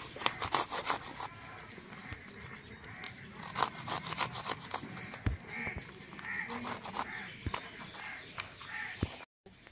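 Garlic cloves being grated on a flat stainless-steel hand grater: bursts of quick rasping strokes, pausing and starting again.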